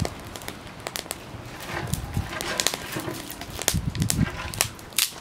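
Small fire of dry grass and twigs crackling, with many sharp irregular pops and snaps as the kindling catches. A few low puffs of sound come around four seconds in.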